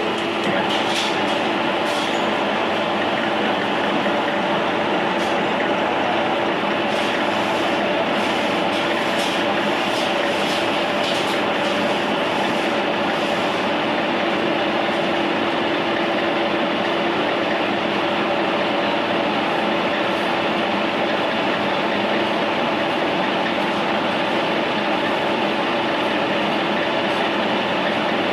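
Metal lathe running steadily while cutting a thread, a constant mechanical drone with a steady hum. Faint scattered ticks come through in the first half.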